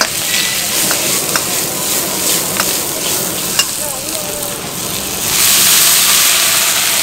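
Vegetables sizzling as they are stir-fried in a wok, with a metal ladle clicking and scraping against the wok several times. About five seconds in, water poured into the hot wok sets off a louder, steady hiss of steam.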